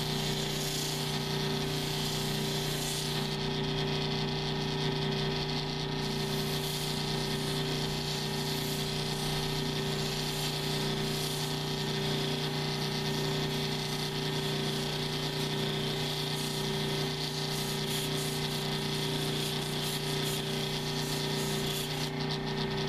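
Flat lap lapidary machine running with a steady motor hum while a labradorite cabochon is held against its spinning 1000-grit soft sanding disc, giving a continuous grinding hiss.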